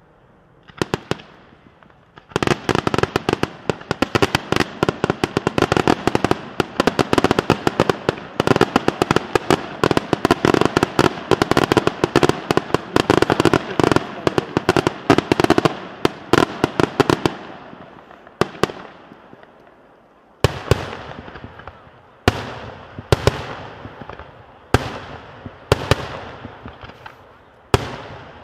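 Aerial fireworks shells bursting in a dense, rapid barrage of bangs and crackles for about fifteen seconds. The barrage thins out, then single loud bangs follow about once a second near the end.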